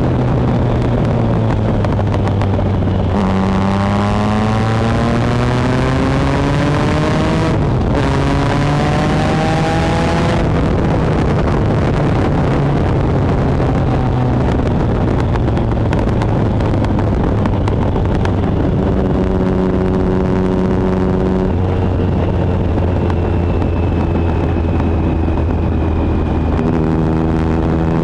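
2013 Triumph Speed Triple 1050's inline three-cylinder engine through a Competition Werks GP slip-on exhaust, heard from on board while riding. The revs climb and fall with brief breaks at gear changes about three, eight and ten seconds in, then hold steadier in the second half.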